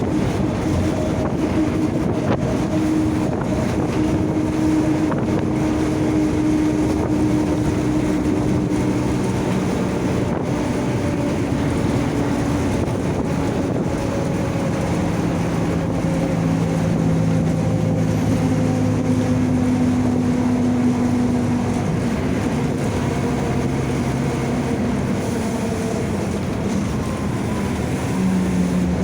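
Mercedes-Benz OF-1722M bus under way: the diesel engine runs steadily, with several steady whining tones that drift slowly down in pitch. The whine is the bus's howling differential.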